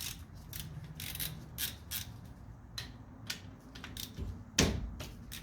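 Socket wrench on a 17 mm socket working the brake caliper bolts loose: a run of short metallic clicks and scrapes, about two a second, with a louder knock near the end.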